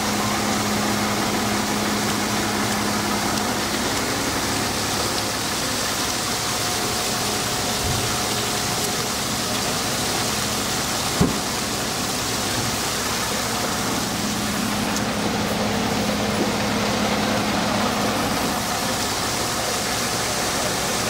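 Steady idling engine noise with a constant hiss and a low hum, and a single sharp click about eleven seconds in.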